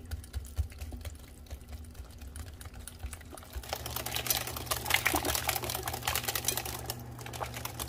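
Wire whisk beating sweet potato pie filling in a glass mixing bowl: rapid clicking of the wires against the glass with wet sloshing of the batter. The strokes get faster and louder about three and a half seconds in.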